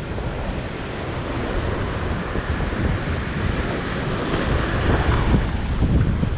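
Heavy surf breaking and washing over coastal rocks in a steady rush, with strong wind buffeting the microphone.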